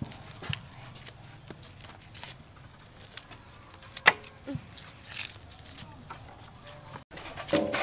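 Razor blades cutting and scraping the papery skins off shallots held in the hand: irregular light clicks and crackles, with one sharper click about four seconds in.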